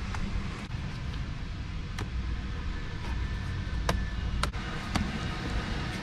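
A few sharp clicks and taps from hands working cleaning gel over a car's steering wheel and dash trim: one about two seconds in and three more close together between about four and five seconds, over a steady low rumble.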